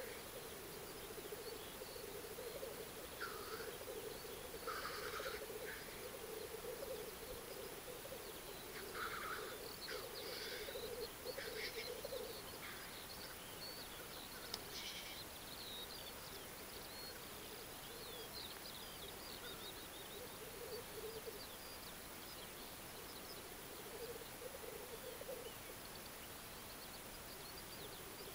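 Black grouse cocks at their lek, keeping up a continuous low bubbling song that fades somewhat after the first half. Several short hissing calls break over it in the first fifteen seconds or so.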